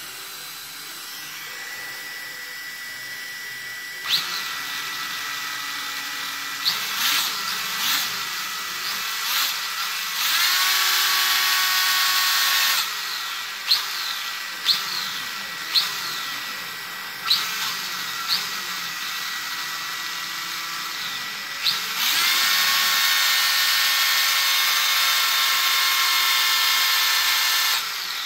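Electric RC car's motor and drivetrain revving under throttle: a string of short blips that whine up and down in pitch, and two steady full-speed runs, one of about two seconds and a longer one of about six seconds near the end.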